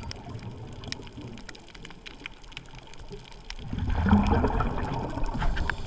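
Underwater ambience on a coral reef: a low wash of water noise with scattered sharp clicks, then a louder churning, gurgling rush of water from a little under four seconds in.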